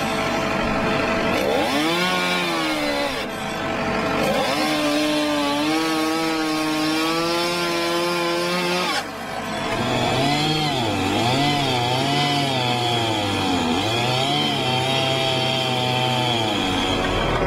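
Chainsaw cutting through the thick trunk of a fallen tree, its engine pitch sagging and recovering as the chain bites into the wood. About halfway through it breaks off and starts again, the pitch dipping and rising more often in a second cut.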